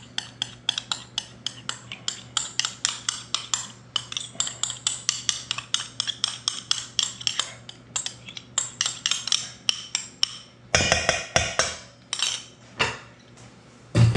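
Spoon stirring Greek yogurt in its container, clicking against the sides in a fast even rhythm of about four strokes a second. Near the end come a few louder scraping strokes.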